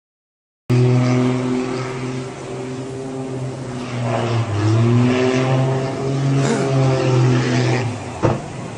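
Small aircraft's engine running loud, its pitch sliding up and down as the plane dives. Near the end a single sharp impact sounds as the plane hits the sea, and the engine sound falls away.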